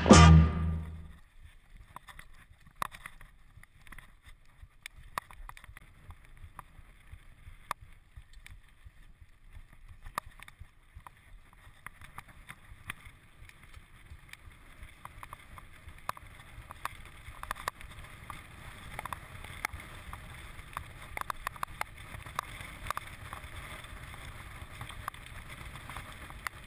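Background music fading out in the first second, then the sound of riding a mountain bike: wind on the microphone, tyres rolling over a dirt and gravel track, and scattered clicks and rattles from the bike over bumps.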